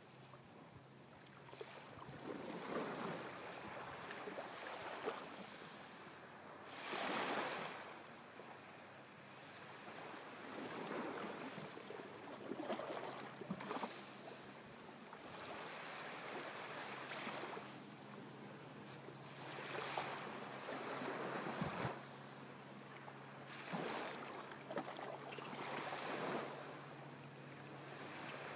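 Small sea waves lapping and washing up on a sandy shore, each wash swelling and fading every few seconds, with one louder wash about seven seconds in.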